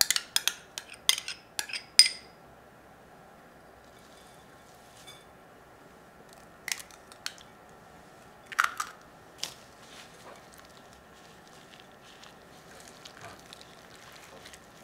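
Ingredients being added to minced meat in a glass mixing bowl: a quick run of sharp clicks and crunches in the first two seconds, a few more taps and crunches around the middle, then faint handling sounds.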